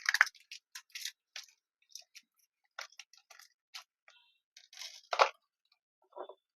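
Light, irregular clicks and ticks of small screws being handled and driven with a screwdriver while fastening a PC part, with one louder clatter about five seconds in.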